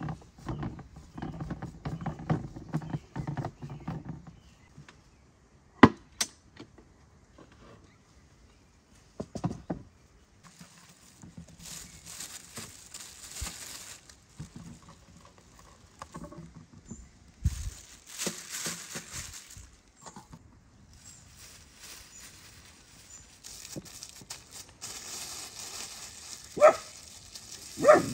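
Hands kneading raw minced beef on a metal tray, a sharp knock about six seconds in, then a clear plastic bag crinkling in bouts as a piece of beef is handled in it. Near the end a dog barks twice.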